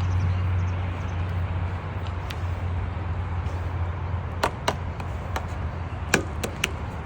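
A horse's hooves striking the ground, half a dozen sharp knocks in the second half of the clip, over a steady low hum.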